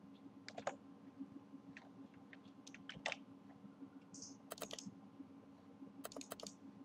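Faint clicks of a computer keyboard and mouse: scattered single presses, then two quick clusters of keystrokes in the second half, over a low steady hum.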